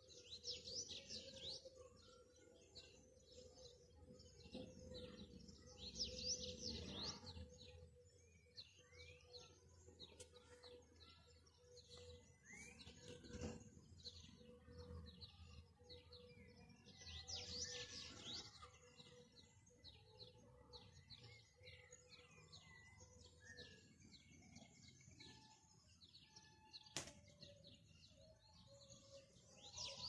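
Faint birdsong: many small chirps, with four louder warbling song phrases: one at the start, one about six seconds in, one around seventeen seconds and one near the end. A faint steady hum sits underneath.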